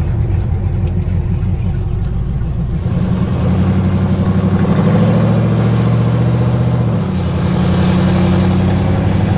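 Cammed 5.3-litre V8 of a Chevy Silverado running open long-tube headers, heard from inside the cab while driving. About three seconds in, the exhaust note climbs in pitch and gets louder as the truck accelerates. Near seven seconds it changes abruptly and settles into a steady drone.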